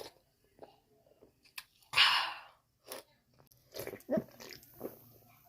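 A carbonated soft drink (Canada Dry) being opened: a short fizzing hiss about two seconds in, with small clicks and handling knocks around it.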